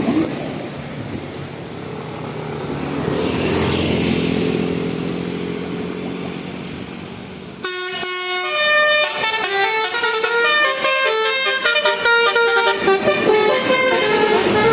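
Road traffic noise with a vehicle passing, then about halfway through a bus telolet horn starts suddenly and plays a fast tune of short notes at changing pitches.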